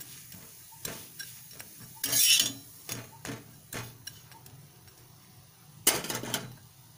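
Steel spatula scraping and tapping against a flat griddle (tawa) as a stuffed paratha is pressed and turned. It gives scattered short clicks, with two loud scrapes about two seconds in and near the end.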